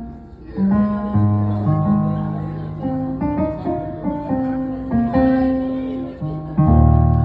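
Guitar music: a run of plucked notes ringing and fading over low bass notes, with a strong new bass note near the end.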